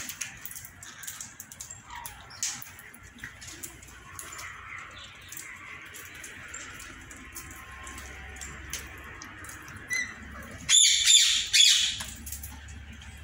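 Indian ringneck parakeets calling: scattered short chirps and clicks, then one loud, harsh squawk lasting about a second near the end.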